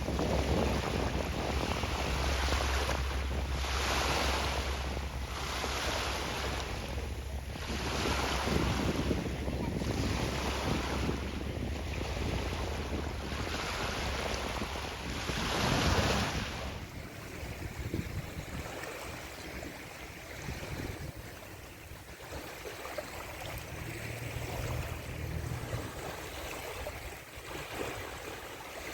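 Sea waves and rushing water with wind buffeting the microphone, swelling every second or two. About two-thirds of the way in the wind rumble drops away, leaving quieter, steady water noise.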